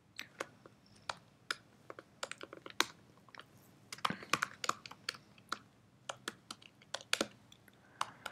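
Typing on a computer keyboard: irregular key clicks, some single and some in quick runs.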